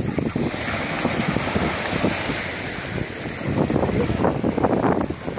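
Small waves washing onto a pebbly beach, with wind buffeting the microphone and children splashing in the shallows, the splashing busiest near the end.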